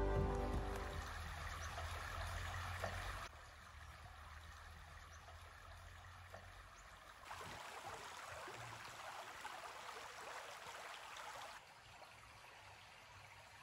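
Shallow river flowing over a stony bed: a faint, steady rush of water that steps up and down in level a few times. The last of a music track fades out in the first second.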